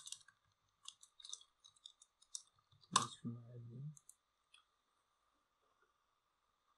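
Computer keyboard typing: a quick run of soft key clicks in the first half, then near quiet with a faint steady high tone underneath.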